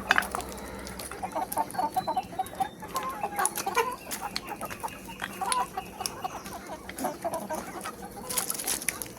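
A flock of chickens clucking busily, many short calls overlapping, with scattered sharp clicks among them.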